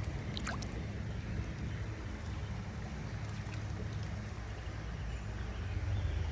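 Creek water running steadily past, an even rushing with a low rumble underneath.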